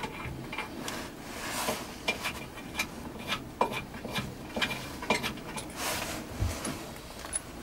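Sheet-metal door of a Transwave phase converter's control box being handled and closed: irregular small metal clicks, taps and rubbing.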